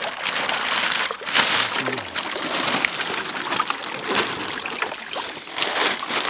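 Water splashing and sloshing continuously, with many short sharp splashes.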